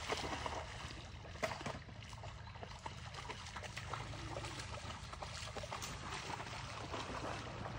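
A retriever splashing through pond water and then swimming, with a steady patter of small splashes and lapping. The splashing is loudest at the start and settles into lighter, even water sounds.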